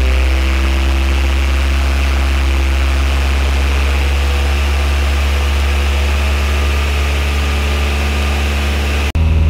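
Honda D16Y8 SOHC VTEC four-cylinder engine, fitted with a freshly installed SpeedFactory Street Savage race cam, running steadily at a raised idle of about 2000–2500 RPM to break in and seat the new camshaft. The sound cuts off abruptly near the end.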